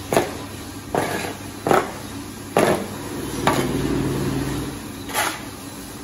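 Shovel scraping and knocking on a concrete barn floor as manure is cleared: six sharp scrape-and-knock strokes about a second apart, with a longer gap before the last.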